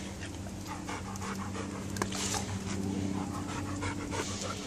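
Large black dog panting steadily, heard close up, over a steady low hum.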